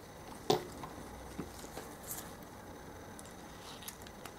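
Circlip pliers and a steel circlip being worked onto a pit bike gearbox output shaft: one sharp metallic click about half a second in, then a few faint scattered ticks.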